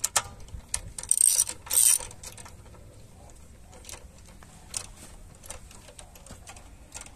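Hand socket ratchet clicking as lug nuts are tightened onto a wheel hub, with small metal clinks. A fast, loud run of clicks comes about a second in, then scattered single clicks.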